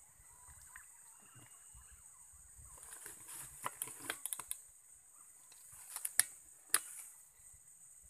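Insects droning steadily at a high pitch, with two clusters of sharp clicks and knocks in the middle as a scope-mounted camera rig is handled and swung about. The loudest two clicks come near the end of the second cluster.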